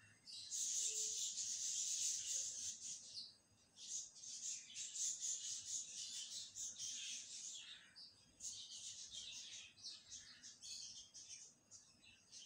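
Oil sizzling and crackling around simmering qeema in a wok: a hissy crackle in stretches of a few seconds, with brief breaks near 3.5 s, 8 s and 12 s.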